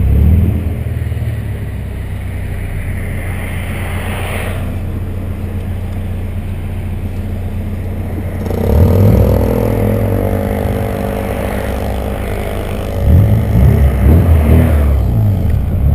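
VW Santana's AP 2.0 inline-four engine running as the car drives. It revs up and drops back about nine seconds in, then revs rising and falling in pitch several times over the last few seconds, as through gear changes.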